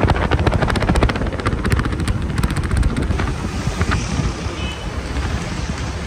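Motor vehicle travelling along a road: engine running with a rapid, even pulsing over heavy wind rumble on the microphone. The pulsing is strongest in the first three seconds, then eases.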